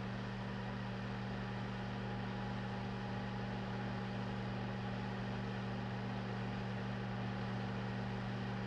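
Steady low machine hum with an even hiss over it, unchanging in level.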